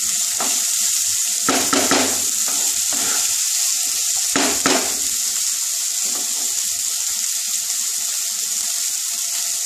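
Drumstick pieces, onion and tomato sizzling in oil in a nonstick frying pan as they are sautéed. A wooden spatula stirs and scrapes them a few times in the first five seconds, then the steady sizzle carries on alone.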